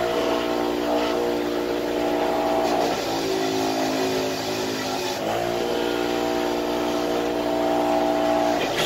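Delta bench grinder running with a piston pressed against its wheel to scrub carbon out of the ring lands; the motor's steady whine shifts in pitch a few times as the pressure on the wheel changes, over a rough scrubbing noise.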